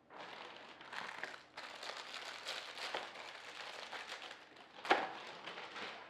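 Packaging crinkling and rustling as a parcel is unwrapped by hand, with one sharp knock about five seconds in.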